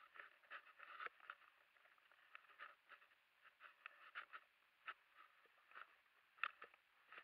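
Near silence with faint, irregular crackling and ticking, a few small clicks each second.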